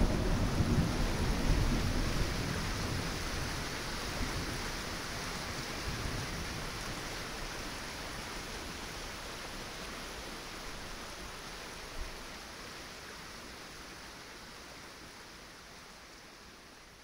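Rain and thunder sound effect fading out slowly; a low thunder rumble at the start dies away under the steady rain hiss, and one brief thump comes about twelve seconds in.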